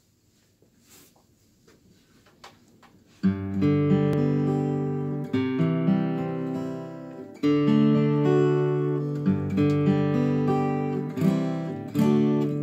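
Martin 000-18 steel-string acoustic guitar, mahogany back and sides with a spruce top. After about three seconds of near quiet with a few faint clicks, chords are struck and left to ring, a new one about every two seconds.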